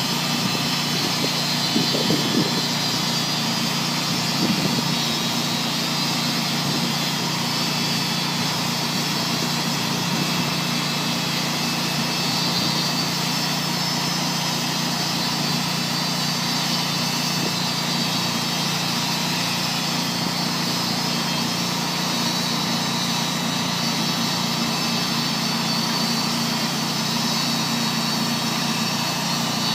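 Tru-Cut HS-70 bandmill's engine running at a steady speed, with two brief louder swells about two and four and a half seconds in.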